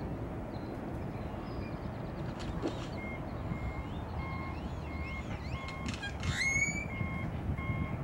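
A vehicle's reversing alarm beeping at an even pace, starting about three seconds in, mixed with birds calling; one loud rising squawk about six seconds in is the loudest sound.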